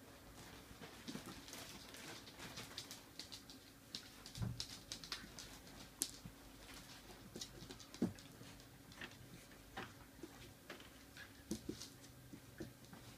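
Dogs playing: claws clicking and scrabbling on a tiled floor and paws scuffling on mats in quick, irregular patters. A dull thump comes about four seconds in and a sharp knock about eight seconds in.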